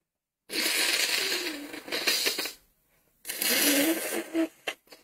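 A woman blowing her nose into a tissue: two long blows with a short pause between, her nose blocked by a cold.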